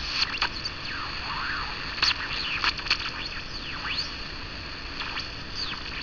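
AM radio picking up a small transistor exciter circuit's ferrite-coil oscillator: hiss with whistles gliding up and down in pitch and scattered clicks, which shift as the circuit's variable capacitor tuning is adjusted.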